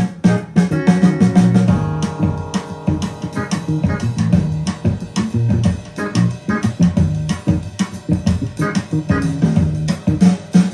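Recorded guitar and bass music with a steady beat, played back over a Tannoy loudspeaker wired in series and driven by a Threshold SA/2 power amplifier.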